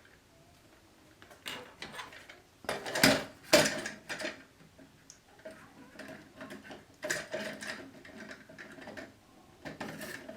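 Hands handling the plastic parts of a Fluidmaster 400A toilet fill valve while fitting its hose: a scattering of small plastic clicks and knocks, loudest about three seconds in.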